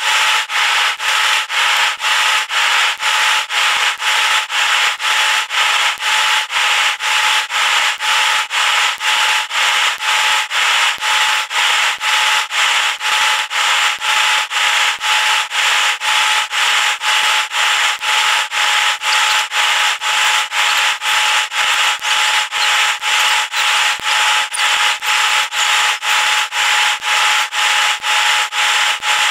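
Airliner cabin noise in flight: a steady rushing hiss with a steady whine in it, pulsing evenly a little more than twice a second.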